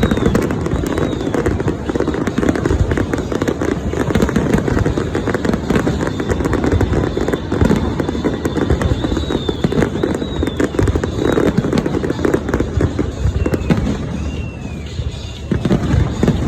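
Fireworks going off: a dense, continuous run of crackles and bangs. Short whistles rise and fall in pitch in small groups near the start, in the middle and near the end.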